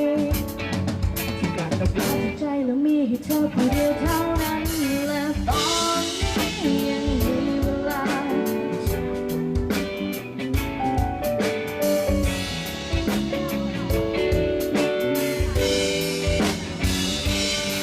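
A live band plays a song through the PA during a sound check: drum kit beating steadily under guitar and a wavering melody line.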